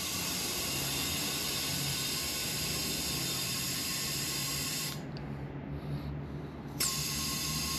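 Compressed air hissing steadily through a tire-inflator chuck into a tubeless tire to seat its bead. The flow stops about five seconds in and starts again nearly two seconds later.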